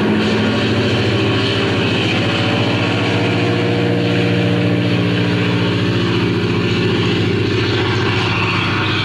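Vintage piston aircraft engine running steadily at an even pitch, a dense low drone with a fast regular pulse.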